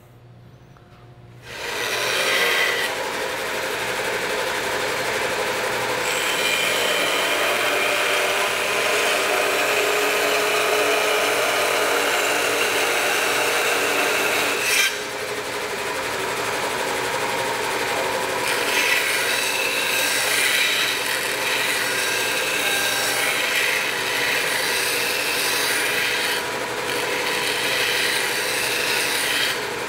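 Bandsaw cutting the kerf slot into the eye end of a wooden axe handle: a steady rasping saw noise that starts about a second and a half in, with a short break about halfway through.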